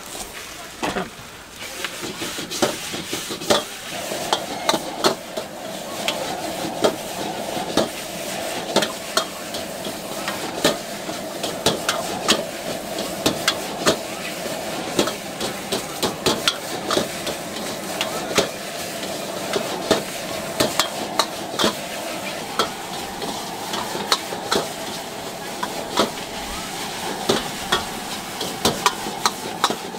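Flat rice noodles sizzling in a hot wok while a metal ladle scrapes and knocks against the wok, with frequent sharp clanks over a steady sizzle.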